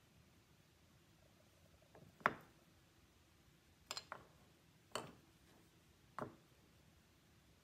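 Wooden blocks being handled on a wooden workbench: about six short, sharp knocks of wood against wood as pieces are fitted together and set down, the loudest a little over two seconds in.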